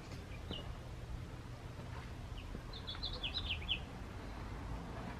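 A small bird chirping: one short high call about half a second in, then a quick run of short, falling chirps about three seconds in, over a faint low outdoor rumble.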